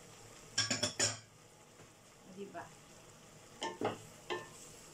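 A wooden spatula stirring and tossing stir-fried broccoli, carrots and wood ear in a metal pot, with clusters of quick scrapes and knocks against the pot about a second in and again near the end, over a faint steady sizzle of the vegetables frying.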